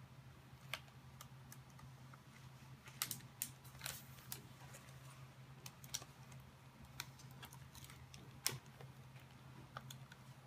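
Scattered light plastic clicks and taps as an HP TouchSmart tx2 convertible is handled and its screen is swung up from tablet back to laptop position. A cluster of clicks comes about three to four seconds in, and a single sharper click comes about eight and a half seconds in.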